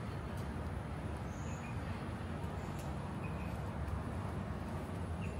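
Steady outdoor ambience: an even low rumble with a few faint short chirps.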